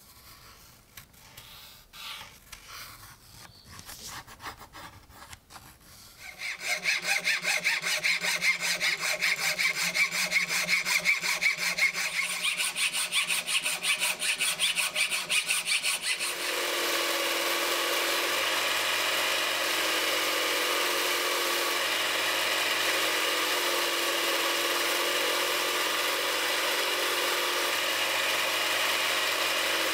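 Workshop tool work on the knife: faint scraping for the first six seconds, then a fast rhythmic cutting sound from about six seconds in, changing at about sixteen seconds into a steady running power-tool whir.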